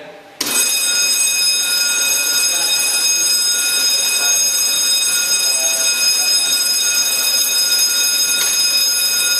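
Fire alarm buzzer of a PLC-controlled fire alarm system sounding one loud, steady high tone that starts abruptly about half a second in, set off as zone 3 is tested.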